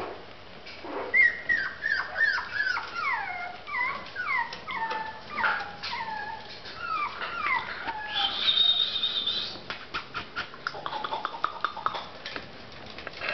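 Young puppies whimpering: a long run of short whines, each falling in pitch, then a higher, steady squeal about halfway through. Near the end comes a quick patter of clicks.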